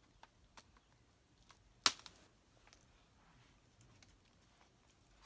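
Scissors snipping the tails off plastic zip ties: a few faint clicks and one sharp snip about two seconds in.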